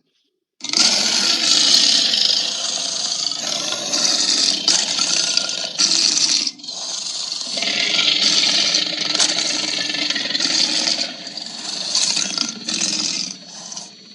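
Harsh, raspy monster sound effect for a Godzilla-like kaiju, starting about half a second in after silence, with several brief breaks, and dying away near the end.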